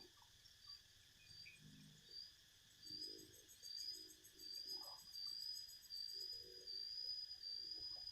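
Insects trilling with a high, steady note that pulses at first and runs continuously from about halfway through. Soft low rustles and knocks are heard under it.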